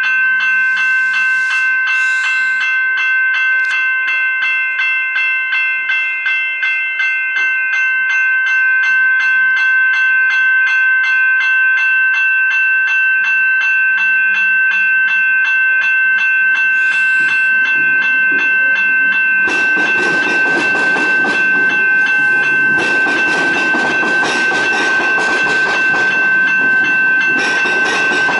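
Level-crossing warning bells ring in a rapid, evenly repeating pattern. About two-thirds of the way in, a Metro electric suburban train arrives and runs over the crossing, and the noise of its wheels on the rails rises steadily beneath the bells.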